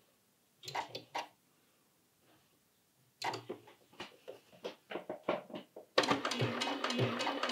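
A few clicks and taps as fabric is settled under the presser foot, then about six seconds in a computerized sewing machine starts stitching: a rapid, steady run of needle strokes over a steady hum, the start of a zigzag seam with a backtack.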